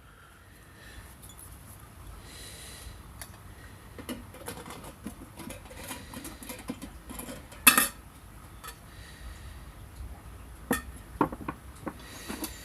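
Metal pieces clinking and knocking as they are handled, with one louder knock a little before the eight-second mark and a few more near the end.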